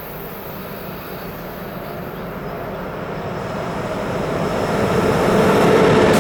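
A train approaching on the line, its rumble of wheels on rails growing steadily louder until it is passing close by near the end, with a faint steady tone coming up as it nears.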